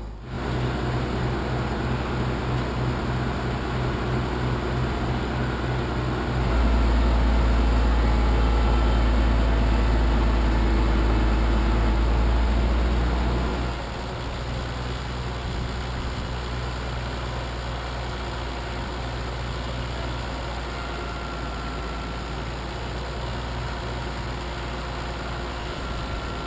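Truck engine running, swelling louder and deeper for about seven seconds in the middle before settling back to a steady run.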